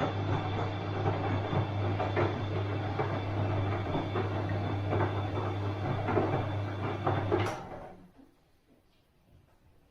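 Bosch washing machine running, a steady low motor hum under irregular knocks and clatter from the tumbling drum. About seven and a half seconds in there is a sharp click and the running stops, leaving near silence.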